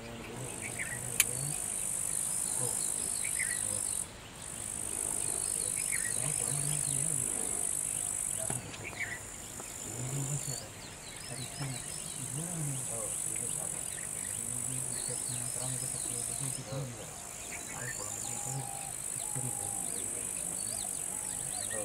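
Steady high insect drone that cuts out briefly and resumes several times, with faint short chirps over it.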